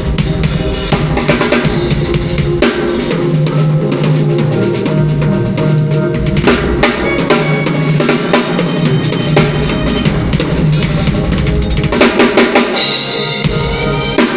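Live band playing, led by a drum kit with kick drum, snare and rim shots over sustained bass and other held instrument notes, loud and steady throughout.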